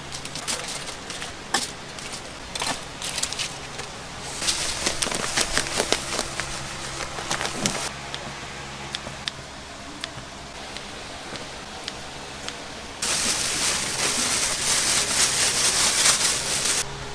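Food sizzling and crackling in hot oil in a snack-shop kitchen, over a steady low hum. The sizzle swells about four seconds in, and about thirteen seconds in a much louder burst of sizzling starts suddenly, as when food is dropped into the fryer, then stops just before the end.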